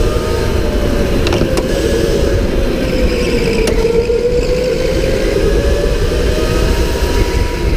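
Electric go-kart motor whining at speed, its pitch dipping through a corner about four seconds in and rising again on the straight, over a heavy low rumble. A few sharp knocks come through early on and near the middle.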